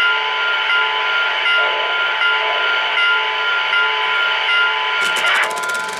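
Model steam locomotive sound: a long, steady whistle chord held over soft, regular chuffing. Rapid clicking starts about five seconds in.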